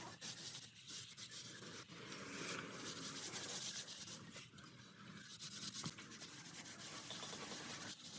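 Faint, repeated scraping and rubbing of a hand tool against a hard surface, typical of tiling work such as spreading or smoothing mortar.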